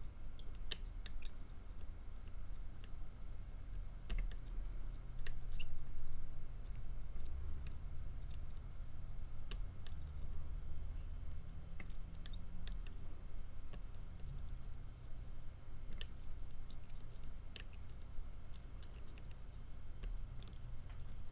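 Tubular lock pick working the pins of a cheap tubular lock: small sharp metallic clicks at irregular intervals, a few close together, as pins set and click back. A low rumble from handling runs underneath.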